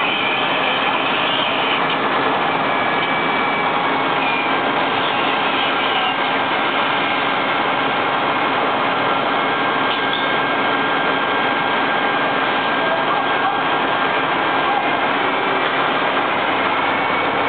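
Fire engines' motors and pumps running steadily: a loud, even noise with a few faint steady whines over it.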